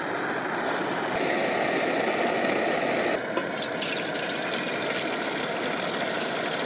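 Water pouring from a bottle into a metal cooking pot on a lit pump-pressurised liquid-fuel camp stove, splashing into the pot, over the burner running steadily. The pour sets in about a second in.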